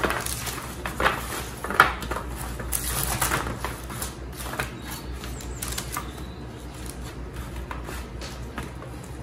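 Gloved hands mixing and spreading oiled, salted potato slices on a parchment-lined baking tray: irregular soft slaps, taps and paper rustles, busier in the first few seconds. A faint steady low hum runs underneath.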